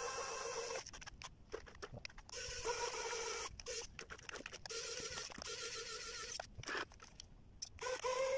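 Small electric gear motor of a cardboard RC forklift whining in short runs of a second or two, stopping and starting four times as the model is driven forward in spurts, with light clicks and scrapes in the pauses.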